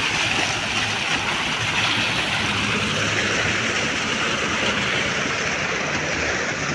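Steady splashing and rushing of a small decorative fountain's water jets, with a faint low hum underneath.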